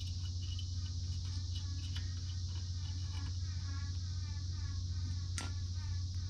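Steady high drone of cicadas over a low constant hum, with one sharp click about five seconds in.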